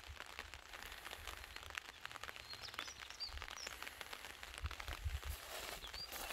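Outdoor ambience: small birds chirping now and then over a light, crackling patter, with a low rumble of wind on the microphone that grows near the end.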